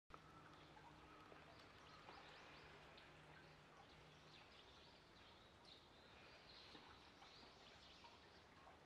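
Near silence: faint outdoor background noise with a few faint, high bird chirps.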